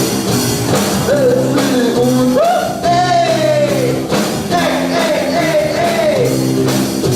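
A rock song playing: a singer's voice carries a gliding melody over steady held band chords.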